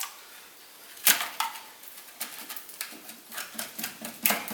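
Metal clicking and rattling at the dismantled rear brake of a VW Golf 5, likely the corroded sheet-metal brake dust shield being handled. A single sharp click comes about a second in, then a run of quicker, irregular taps grows denser toward the end.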